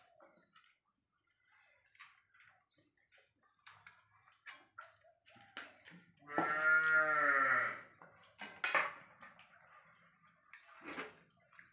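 Eating sounds: hands mixing and squeezing rice and curry on steel plates, with small wet clicks and clinks throughout. About six seconds in, a cow moos once, a call of about a second and a half that falls slightly in pitch and is the loudest sound here.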